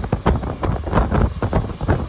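Wind buffeting the microphone on a moving passenger train, in irregular gusts over the train's running noise.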